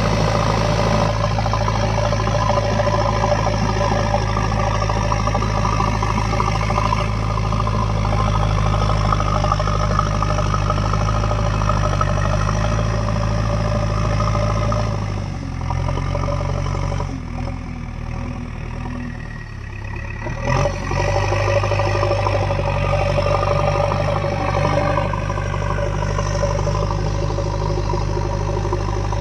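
Diesel engine of a JCB 3DX backhoe loader running steadily. About halfway through it dips in speed and loudness for a few seconds, with a short louder moment, then settles back to its steady running.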